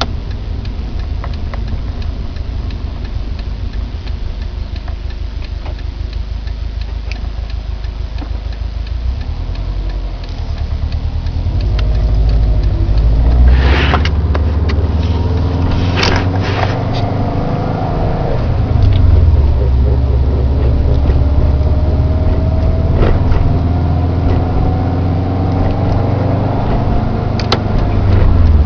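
2009 Subaru Impreza WRX STI's turbocharged flat-four engine running, growing louder about a third of the way in. A slowly rising whine comes in over the second half, and several sharp clicks are heard along the way.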